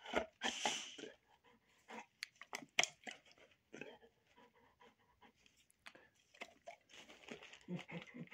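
A large dog's faint mouth noises: a scatter of short wet clicks and smacks, with breathy puffs of panting about half a second in and again near the end.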